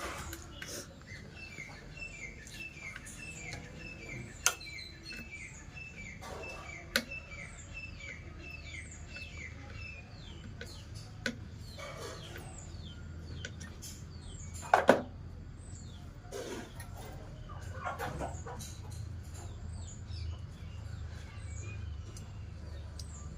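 A bird chirping: a quick run of short, falling chirps, about three a second, through the first ten seconds or so, then scattered chirps. A few sharp clicks or knocks cut in, the loudest about 15 seconds in.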